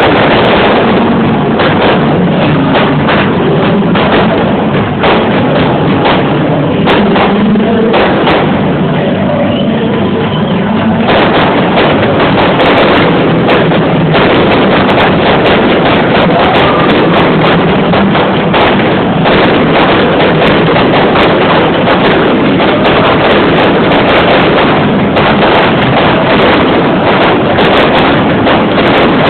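Fireworks going off in a dense, continuous barrage of bangs, loud throughout.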